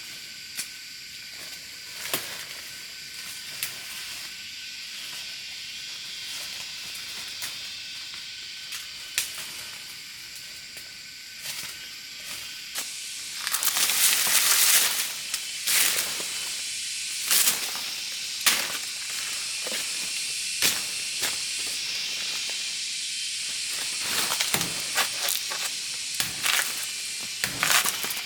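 A steady high hiss with many scattered clicks and knocks, and a louder rushing noise lasting about a second and a half near the middle.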